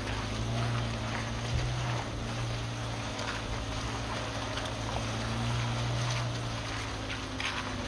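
1991 Suzuki Sidekick's four-cylinder engine running steadily as it drives, with tyres crunching over wet gravel and rocks.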